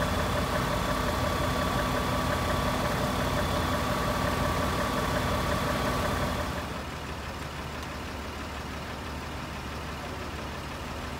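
Fire engine running steadily at its pump with hoses attached, a steady mechanical drone with a fixed tone over it. About six and a half seconds in it drops away to quieter, even background noise.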